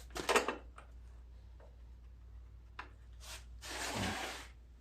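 Hand-handling of engine parts being fitted and lined up: a few quick clicks and knocks just after the start, then a longer rubbing scrape about three and a half seconds in.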